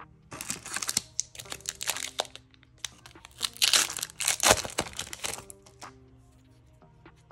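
Flesh and Blood booster pack wrapper crinkling and tearing open, in two spells of a few seconds each, the second louder.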